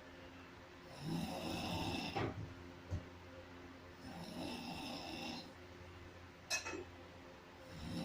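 A person snoring, three rasping snores about three seconds apart, each lasting a second or more. A few short sharp clicks fall between them, the sharpest about six and a half seconds in.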